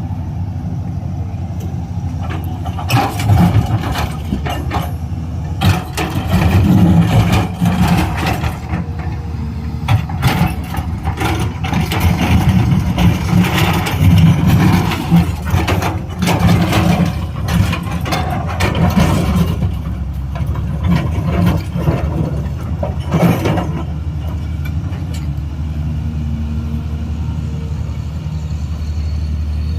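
Excavator's diesel engine running steadily. Through most of the middle it gets louder, with many clanks and knocks as the machine works, then settles back to a steady run near the end.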